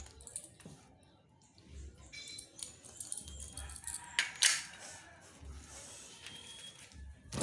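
Light clicks and knocks of aluminium window profiles and small fittings being handled and fitted by hand, with the sharpest knock about four and a half seconds in.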